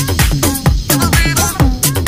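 Upbeat electronic dance music with a steady, driving beat.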